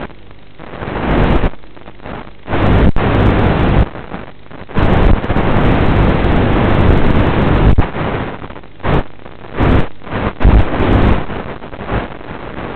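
Rushing noise from an FPV aircraft's onboard audio carried over its analog video link: wind and radio hiss surging on and off in loud gusts, with no clear motor tone, as the link breaks up with the weakening signal.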